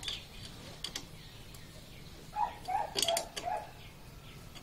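A spanner clinking against the engine's bolts in a few scattered light metal ticks, with a short run of animal calls about two and a half seconds in.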